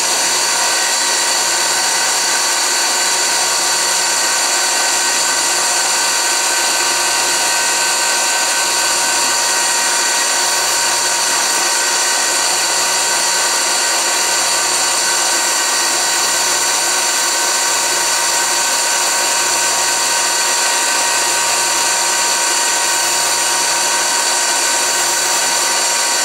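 Lisle drill-bit grinder's electric motor spinning its grinding wheel at a steady pitch, with a slow regular pulse in the hum about every second and a half, while a diamond dresser is fed across the wheel to true and sharpen it.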